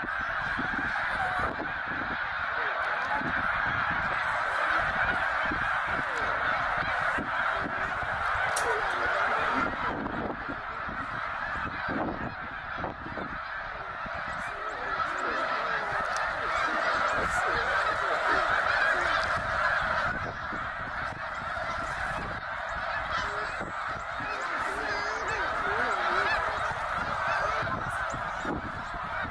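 A huge flock of snow geese calling all at once: a dense, unbroken chorus of honking.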